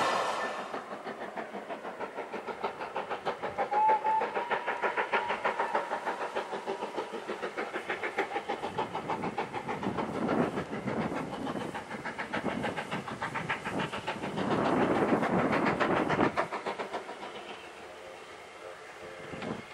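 Steam locomotive approaching under steam, its exhaust beating in a fast, even rhythm of several beats a second that swells louder twice. A brief high note sounds about four seconds in.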